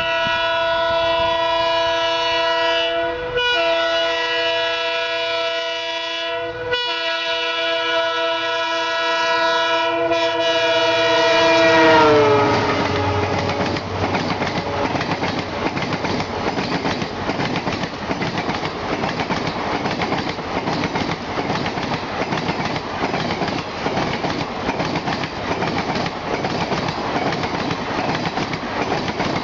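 Multi-note horn of a WDP-4D diesel locomotive sounding long and loud, broken twice briefly, its pitch dropping about twelve seconds in as the locomotive passes. The express's coaches then rush past with a steady clickety-clack of wheels on the rails.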